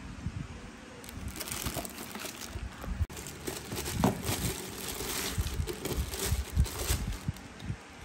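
Plastic bag and cardboard packing rustling and crinkling as a glass coffee carafe is unpacked by hand, with occasional light knocks.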